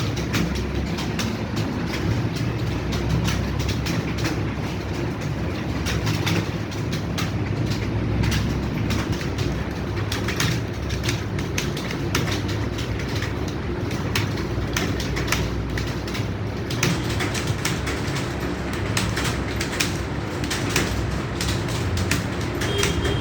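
Many computer keyboards clattering at once as a roomful of people types continuously: a dense, unbroken run of rapid key clicks over a low steady hum.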